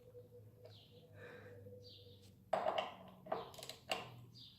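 A few sharp metallic clicks and knocks from hand tools while the motorcycle's brake caliper bolts are tightened. A bird chirps every second or so.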